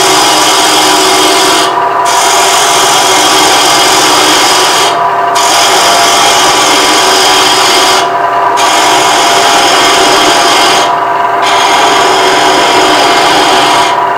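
Bowl gouge cutting into the spinning wooden tenon of a bowl on a wood lathe, plunging straight in to remove the bulk of the tenon: a steady, loud cutting hiss over the lathe's hum, briefly easing off about every three seconds between cuts.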